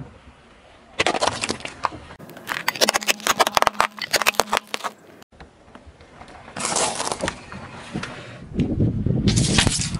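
Car tyre rolling over and crushing brittle objects on asphalt: a dense run of sharp cracks and crunches over a couple of seconds, then two shorter crunching bursts, the last with a low rumble of the tyre on the road.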